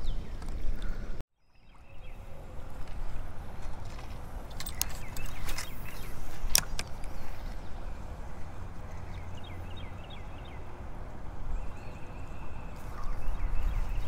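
Creek water swishing around a wading angler, with a low rumble and handling noise, and a few sharp clicks around the middle. The sound cuts out for a moment about a second in.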